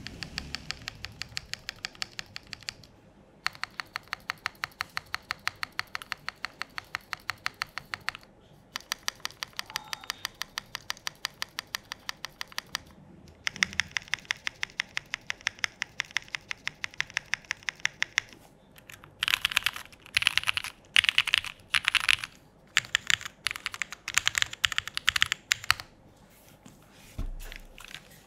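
Typing on a KLC Dolice mechanical keyboard with Pureberry switches, a POM plate and SWK Foundation keycaps. It starts with long, steady runs of rapid, evenly spaced keystrokes, several a second. Later come louder, denser bursts of fast typing and a single low thump near the end.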